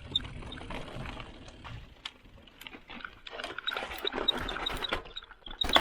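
Giant Talon 2 hardtail mountain bike rattling and clattering over a bumpy rocky trail section, with many sharp knocks from the wheels and frame and a loud knock near the end.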